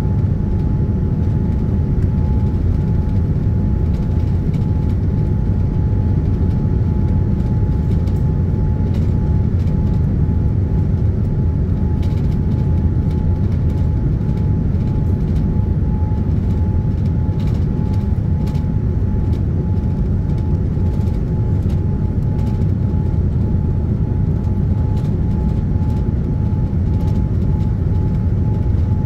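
Cabin noise of a Boeing 787-10 on final approach with flaps extended: a steady low rumble of airflow and engines, with a steady hum running through it.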